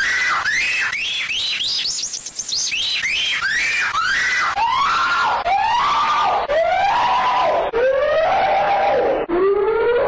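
A shrill squealing cry repeated over and over, each cry rising and falling in pitch. For the first couple of seconds the cries come faster and higher; then the audio is slowed down step by step, so each cry gets longer and deeper, ending as a low drawn-out moan.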